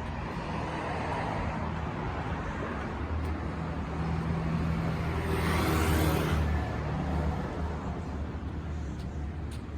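A motor vehicle passing on the street: engine hum and tyre noise build to a peak about six seconds in, then fade, over steady traffic noise.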